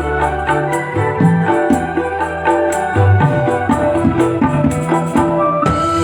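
Music played on an electronic keyboard with an organ-like sound over a bass line and a steady percussion beat.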